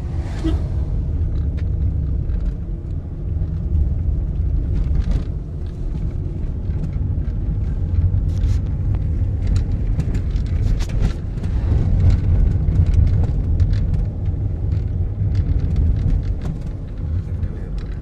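Car driving, heard from inside the cabin: a steady low road-and-engine rumble with scattered small rattles and clicks.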